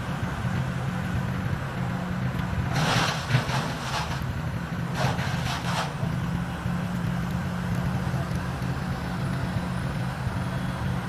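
An engine on tree-work equipment running steadily at a constant speed. About three and again about five seconds in come two short bursts of crackling noise.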